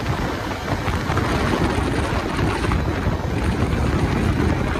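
Wind rushing over the microphone of a rider on a moving Bajaj Dominar 250 motorcycle: a steady, heavy low rush with the bike's running noise underneath.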